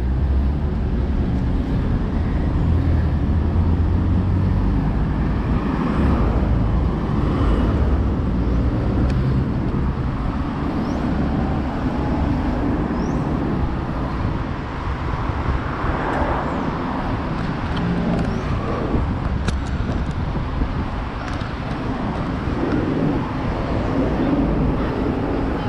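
Road traffic passing close by, heard from a moving bicycle, over a steady low rumble of wind on the microphone. One vehicle passes louder about two-thirds of the way through.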